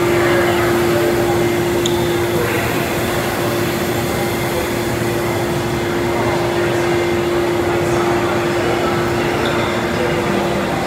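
Busy train-station concourse ambience: a steady droning hum that holds one constant pitch throughout, with faint voices of passers-by in the background.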